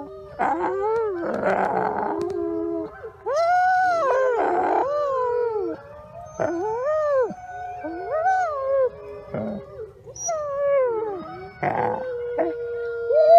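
A pack of wolves howling in chorus: several overlapping howls rise and fall in pitch and cross one another. A few short, harsh noisy calls break in among them.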